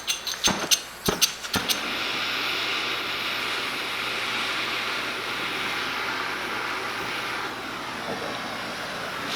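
Several sharp metal knocks, then a gas torch flame hissing steadily as it heats the steel frame to straighten it.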